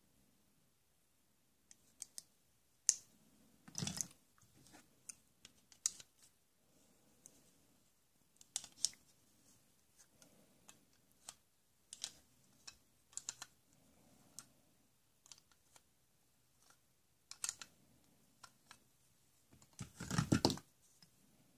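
Hard plastic pieces of a Black & Decker toy tool set being handled: scattered clicks and clacks as a toy wrench, plastic bolts and nuts knock together, with a louder knock about four seconds in and a quick run of clatter near the end.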